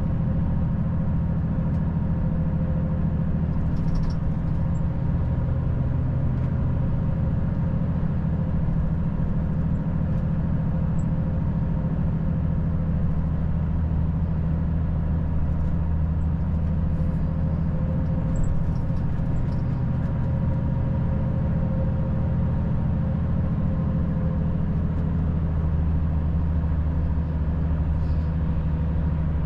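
Volvo FH 540 truck's 13-litre straight-six diesel running steadily at cruise, a constant low drone with road noise.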